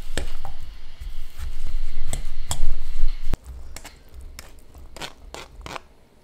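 Wire potato masher pressing boiled potatoes in a ceramic bowl: repeated soft thuds and squishes with clicks of metal against the bowl. About three seconds in it cuts to a much quieter stretch with a few light clicks as canned corn is tipped onto the mash.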